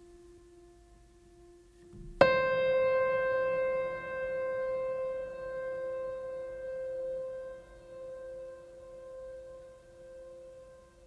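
Music: a faint held tone, then about two seconds in a single note struck sharply that rings on and slowly fades, wavering in loudness as it dies away.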